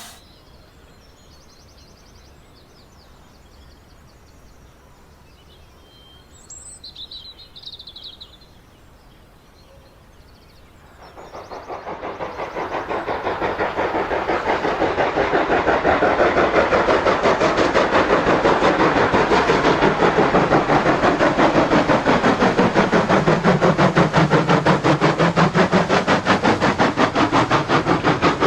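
OO gauge model train running on the layout, coming in from near silence about eleven seconds in and growing loud. It gives a fast, even clatter with a whine that dips in pitch and rises again. A few faint bird chirps sound before it.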